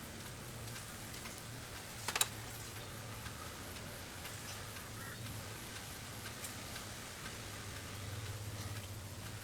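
Quiet workbench handling: faint small ticks over a steady low hum, with one sharp click about two seconds in.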